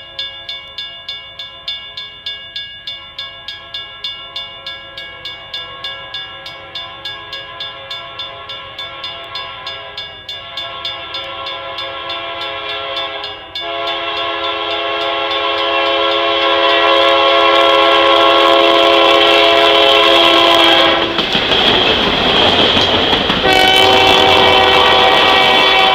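Railroad crossing bell dinging steadily, about two to three strikes a second. About halfway through, a diesel locomotive's air horn starts a loud, long blast. A loud rush as the locomotive passes is followed by more horn as the passenger cars roll by.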